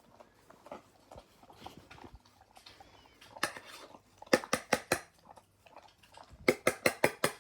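German Shepherd eating her dinner from a bowl: quick runs of sharp chomps and mouth clicks in three bursts, the last two fast, about six a second, with quieter soft sounds between.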